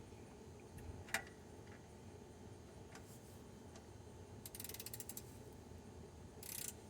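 Faint ratchet with a 13 mm socket working the oil drain plug: a sharp click about a second in, then a quick run of ratchet ticks a little past halfway.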